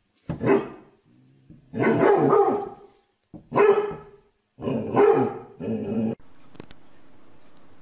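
Dog barking at a cat in four loud bouts, with short gaps between them. The barking cuts off suddenly about six seconds in, leaving a faint steady hum and a single tick.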